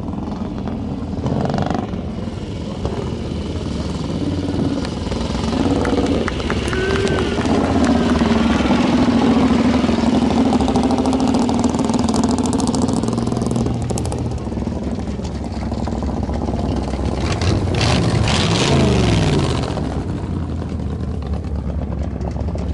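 Two vintage motorcycles racing on sand, their engines growing louder as they approach, then passing by with a falling pitch about nineteen seconds in.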